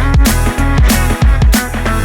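Background music with a steady electronic drum beat and a bass line.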